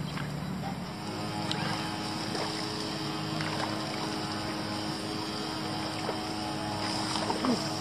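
A small motor running at a steady pitch, with a few short faint sounds over it.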